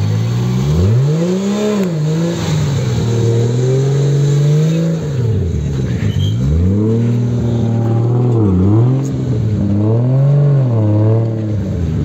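Toyota Mk4 Supra's straight-six engine being revved in the stand about five times, its pitch climbing and dropping back with each rev.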